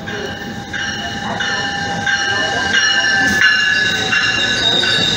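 Bilevel commuter train coaches rolling past with a high metallic squeal from the steel wheels, growing louder as the cars draw near.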